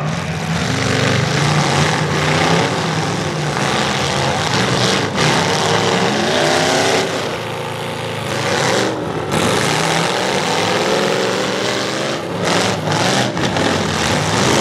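Full-size pickup trucks' engines running and revving hard in a demolition derby heat, the pitch rising and falling, with a few sharp bangs of trucks colliding.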